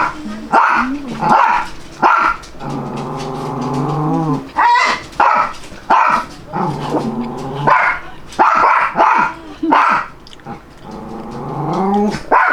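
A dog barking repeatedly, about a dozen sharp barks, with longer drawn-out cries between them that rise in pitch about four seconds in and again near the end.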